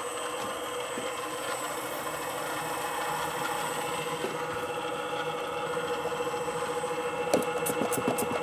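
Gearhead drill press running with a carbide-tipped hole saw cutting into a stainless Damascus steel bar: a steady machine hum with a constant whine. A run of sharp ticks and scrapes from the cut comes near the end.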